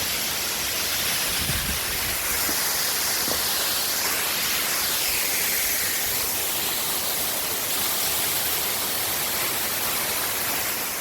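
Waterfall: falling water splashing, heard as a steady, even rush of noise.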